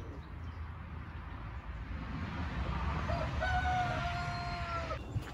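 Brahma rooster crowing once: a single crow starting about three seconds in and ending in a long held note that cuts off abruptly.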